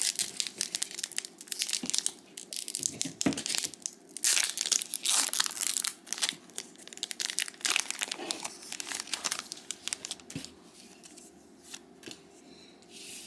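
Foil trading-card booster pack being torn open and crinkled in the hands, a dense crackling that dies down over the last few seconds.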